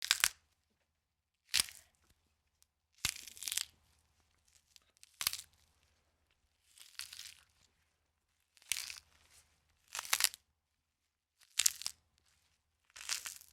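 Bone-cracking sound effect: about nine short, sharp cracks and crunches, one roughly every one and a half seconds, like joints being cracked.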